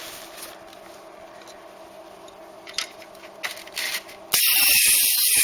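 Handheld ultrasonic plastic spot welder firing one weld: a loud, high hissing screech lasting about a second and a half near the end, after a few light clicks over a low steady hum.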